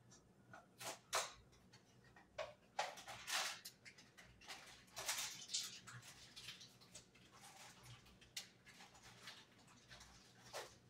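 Faint, scattered rustles and clicks of hands opening a box and handling items at a kitchen counter, coming at irregular moments with short pauses between.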